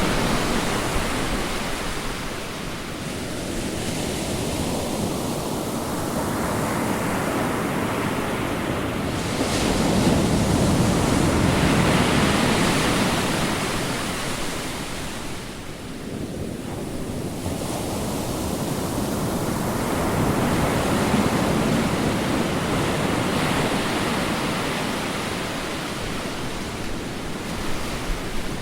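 Ocean waves breaking on a shore: the surf swells into a crisp hiss and falls back again, peaking about every ten seconds.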